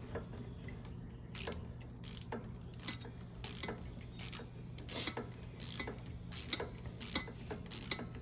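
Ratchet wrench clicking in short, uneven strokes, about two a second, as a carburettor bolt is loosened with a socket.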